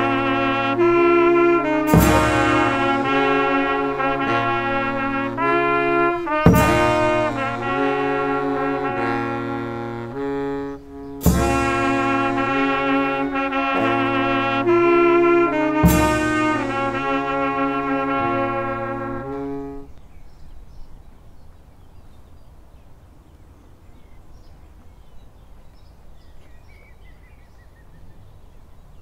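Small brass band of clarinet, trumpets and saxophones, including a baritone saxophone, playing a slow tune in held chords. A bass drum and cymbal crash together four times, about every four and a half seconds. The music stops about two-thirds of the way through, leaving only faint background noise.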